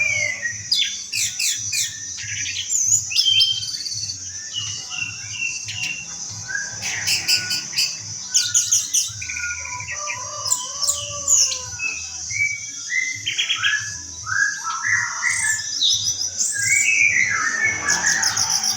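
Orange-headed thrush (anis merah) singing a long, varied song of quick whistled phrases, chirps and rapid trills, over a steady high-pitched whine.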